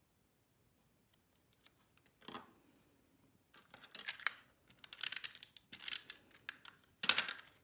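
Small craft scissors snipping card stock, then paper pieces rustling and scraping as they are handled and pressed on a silicone craft mat, in a series of short crackly bursts starting about two seconds in.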